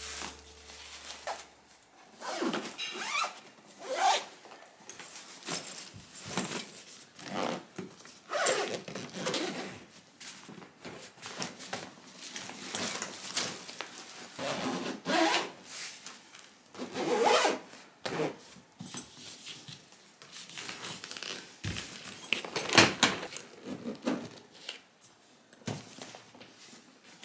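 Luggage zipper pulled in a series of short, uneven strokes while a bag is packed and closed, with handling noise between the pulls.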